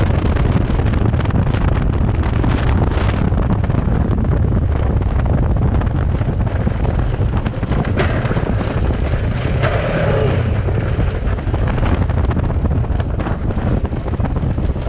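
Kawasaki Versys 650's parallel-twin engine running under way over a rough dirt trail, mixed with heavy wind noise on the microphone. Scattered sharp knocks come through as the bike goes over stones and bumps.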